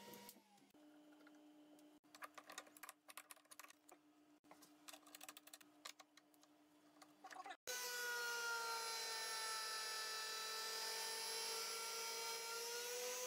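CNC milling machine. It opens with a low steady hum and many scattered clicks. After a sudden cut about seven and a half seconds in, the spindle runs loud and steady with a high whine and hiss as the end mill cuts into a metal block.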